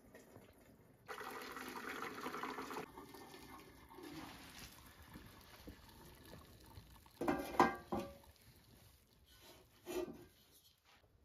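Cooking water poured off boiled spaghetti through a metal steamer insert, a splashing rush of about two seconds followed by a shorter, weaker pour. Later come clanks of metal pots being handled, the loudest about halfway through, another near the end.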